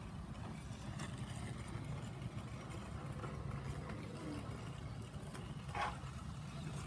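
Steady low hum of an idling car engine. A brief high-pitched sound stands out near the end.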